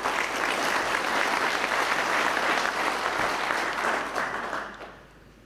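Audience clapping, dying away about four and a half seconds in.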